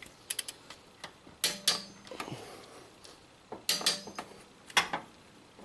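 Torque wrench tightening the cylinder head bolts of a 2014 Subaru Forester to 70 foot-pounds. It gives sharp metallic clicks, loudest in pairs about a second and a half in and again near four seconds in, each pair followed by a short low creak as a bolt takes the load.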